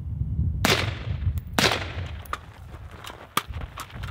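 Two suppressed rifle shots about a second apart, each trailing off in an echo, followed by quick running footsteps on dry dirt.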